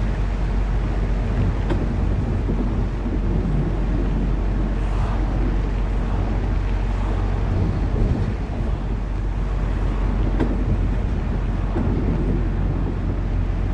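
Arriva London bus on the move: a steady low engine and road rumble with the hiss of travel, and a couple of short knocks or rattles.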